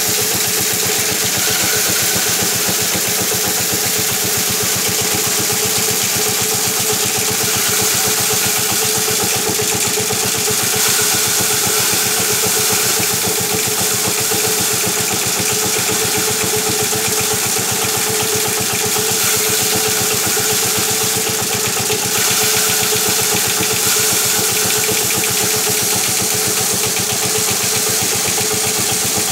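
Motor-driven paddy thresher running steadily, its wire-toothed drum spinning with a steady hum over a fast, even rattle as rice sheaves are held against it to beat the grain off.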